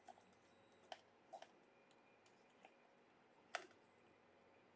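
Faint, scattered clicks and taps of a wooden stir stick against the inside of a plastic cup as thickened putty is dug out, about five in all, with the loudest tap about three and a half seconds in.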